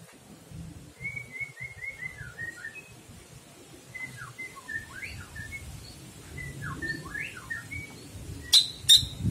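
Caged cucak ijo (green leafbird) singing three short phrases of quick chirps and sweeping whistled notes, each about a second long. Two sharp clicks come close together near the end.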